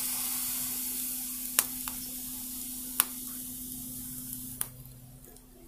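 Bread pakoras, bread wrapped around mashed potato, sizzling steadily as they fry in a little oil in a kadhai, the sizzle fading near the end. Three sharp metallic clinks of a spoon against a pot come over it.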